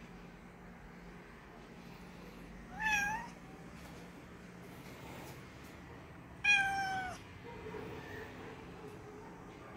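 Domestic cat meowing twice: a short meow about three seconds in, then a longer one that slowly falls in pitch about three and a half seconds later. These are begging meows, the cat asking for the Coca-Cola.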